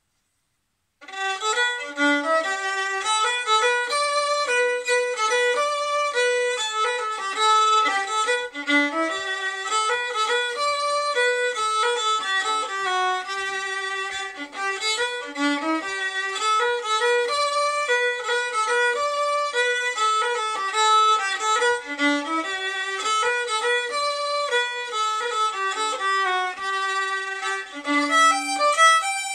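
Solo fiddle playing a lively hornpipe, a quick run of bowed notes that starts about a second in.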